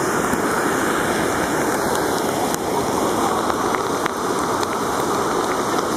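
Steady rush of floodwater: a river in flood running high and fast.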